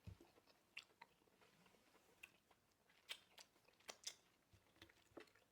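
Faint chewing: scattered wet mouth clicks and smacks of people eating, the loudest a few about three to four seconds in.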